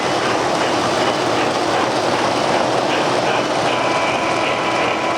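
O-gauge model trains running on a layout: a steady rumble and clatter of wheels on the track, with a faint steady tone coming in a little past halfway.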